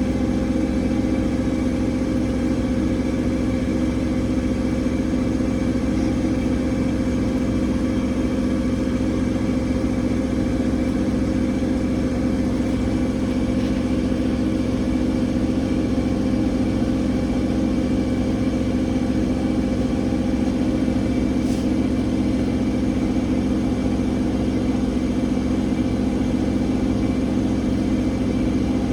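Bauknecht washing machine on its spin cycle, set to 1400 rpm, with the drum spinning at a steady high speed. The motor and drum give a loud, even hum that holds the same pitch throughout.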